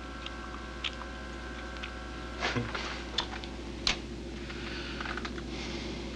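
A window air conditioner running with a steady hum and a thin whine; about two and a half seconds in it is knocked by hand with a dull thump, the whine stops, and a few sharp clicks and knocks follow.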